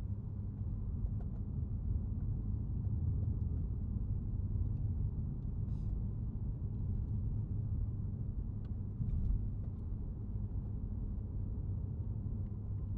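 A steady low rumble with faint scattered clicks.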